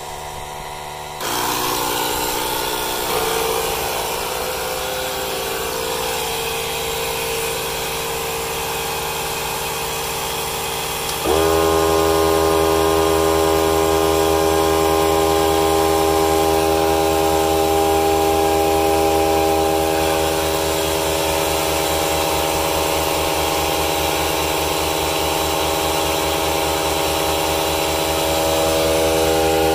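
Cordless battery tyre inflators and a small cordless air compressor running together, a steady motor-and-pump drone as they fill empty tyres. About eleven seconds in, a motor spins up with a short rising whine and the drone gets louder.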